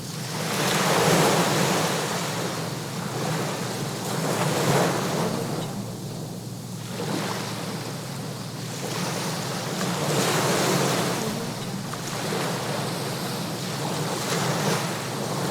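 Sea waves washing onto a shore, a steady hiss that swells and ebbs, with about four louder surges of surf.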